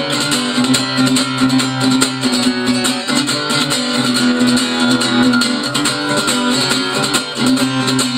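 Guitar strummed in a steady rhythm with no singing, an instrumental passage of a rock song.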